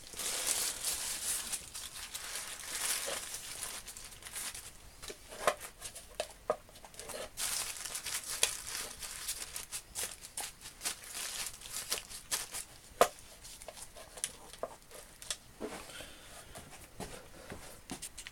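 Tissue paper rustling and crinkling as it is handled and wrapped, with scattered light clicks. It grows fainter toward the end.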